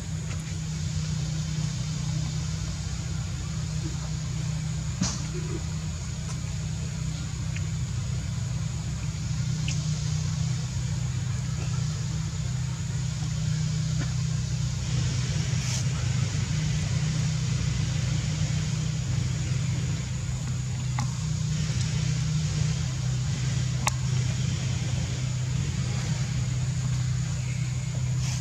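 A steady, even, low engine hum, with a faint steady high-pitched whine above it and a few isolated soft clicks.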